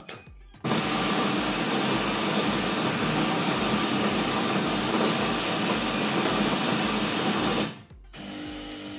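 Siemens EQ500 espresso machine's built-in coffee grinder grinding beans at the start of a latte macchiato: a loud, steady whirring that begins about half a second in and cuts off suddenly near the end. A quieter, steady hum follows as the machine moves on to the next stage.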